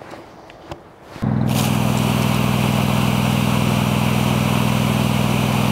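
A small engine-driven fire pump running steadily under load, with the hiss of a water jet from the hose branch. Both start abruptly about a second in.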